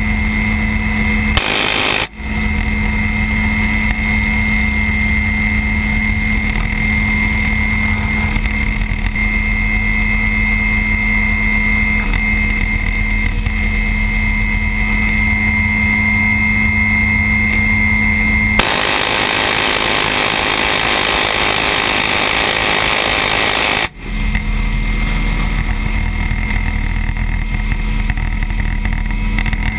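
Little Bird helicopter in flight heard from its open door: steady rotor and engine noise mixed with wind rushing past. The sound changes abruptly about two seconds in, and again near the end, where it turns into a rougher rushing noise for a few seconds before the steady drone returns.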